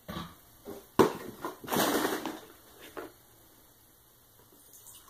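A cardboard orange juice carton being handled: a sharp knock about a second in, then about a second of scraping and rustling, with a couple of softer knocks after.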